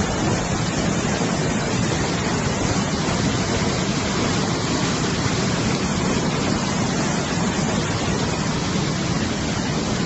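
Swollen, muddy floodwater rushing over a waterfall ledge and down the torrent: a loud, steady rush of water noise that does not change.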